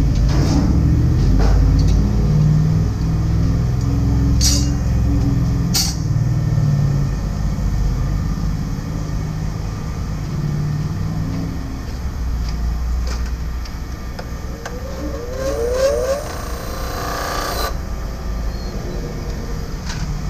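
A heavy vehicle engine running low and steady, with a few sharp metal clinks in the first six seconds. Near the end comes a hiss of air lasting about two seconds that cuts off suddenly.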